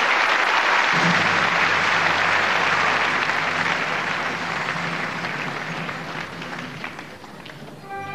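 Theatre audience applauding, fading toward the end. Low held music notes start underneath about a second in.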